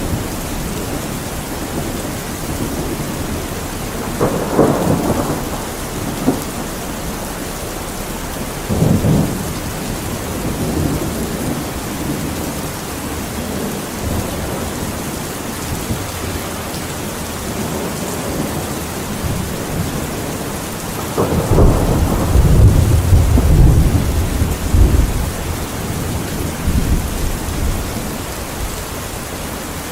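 Steady heavy rain with thunder rumbling through it: two short rolls a few seconds apart early on, then a longer, louder roll about two-thirds of the way through that fades out.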